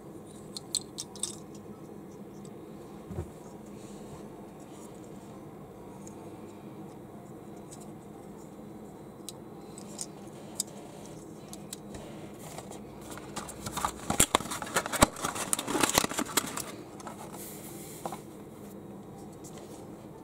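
Small plastic construction bricks clicking and tapping as a minifigure drum kit is handled and pressed together. A few separate clicks come early, and a dense flurry of clicks and rustling comes about two-thirds of the way through.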